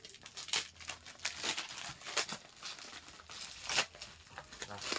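Plastic packaging crinkling and rustling in irregular crackles as a black bubble-wrap mailer is handled and pulled open by hand.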